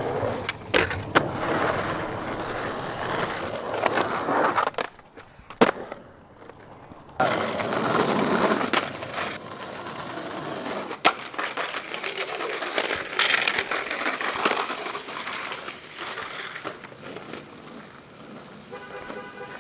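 Skateboard wheels rolling on rough concrete and asphalt, broken by several sharp clacks of the board hitting the ground.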